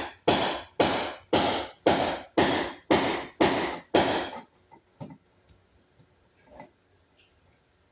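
Music with a steady beat, about two strokes a second, that stops about four seconds in; a few faint clicks follow.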